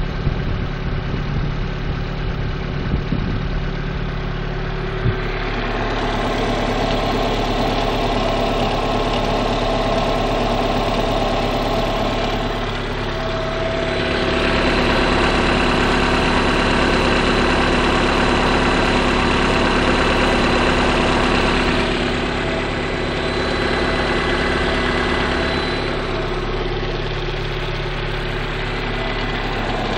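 Lada Priora's VAZ-21126 1.6-litre 16-valve engine idling cold with a piston knock, which the owner says quietens as the engine warms up. It gets louder for several seconds midway, then settles back.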